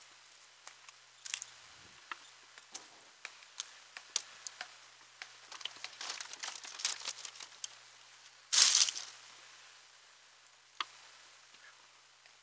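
Dry pine brush and debris being handled and moved: scattered snaps and crackles, a dense run of crackling, then one louder rustling crash about eight and a half seconds in.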